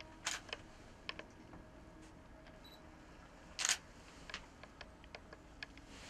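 Quiet room with scattered faint clicks and taps, and one short, louder brush of noise about three and a half seconds in.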